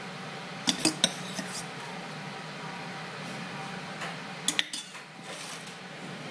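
Metal spoon clinking against a stainless steel bowl while scooping sweet corn kernels into a cup: three quick clinks about a second in and two more near the middle, over a steady low hum.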